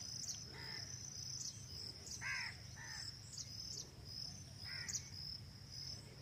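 Outdoor orchard ambience: insects keep up a steady high-pitched trill, and a bird gives short harsh calls four times.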